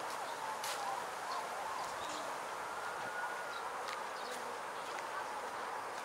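Outdoor park ambience: a steady hiss with faint, wavering calls or distant voices and a few light clicks.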